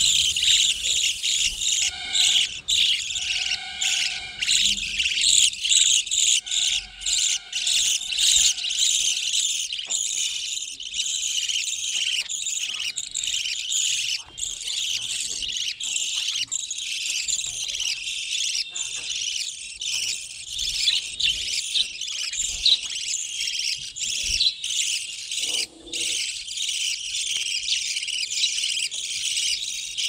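A colony of budgerigars chattering: many quick, high-pitched chirps and warbles overlapping without a break.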